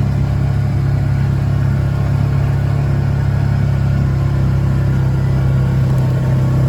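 Steady, unchanging engine drone, like a motor vehicle running at a constant speed.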